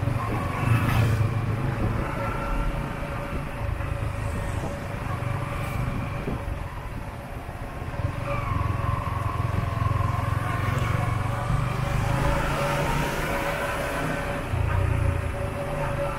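Motorbike riding at low speed through town traffic: its engine running steadily under a constant low rumble of road noise.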